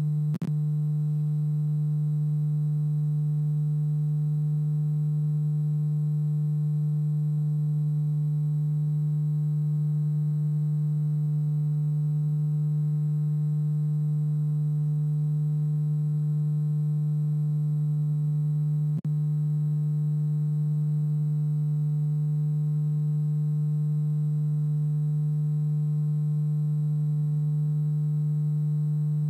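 A steady low-pitched hum: one unchanging tone with overtones, with no music or voices over it. It cuts out for an instant twice, about half a second in and about 19 seconds in.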